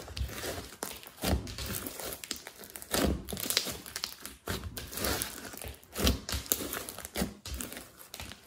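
Hands squishing, pressing and folding a large lump of sticky slime studded with foam beads: wet squelches and crackles at irregular intervals, swelling each time the slime is squeezed.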